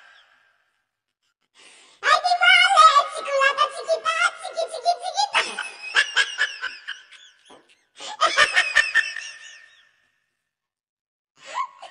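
Human voice sounds, high and wavering, mixed with laughter, in two main spells with silent gaps before and after.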